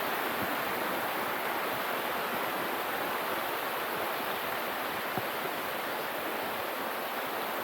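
Steady rush of a waterfall and its stream, falling water heard close by.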